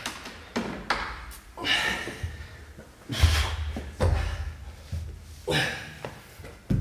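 A man breathing hard in gasps while two heavy thuds come about three and four seconds in, as his body hits the floor.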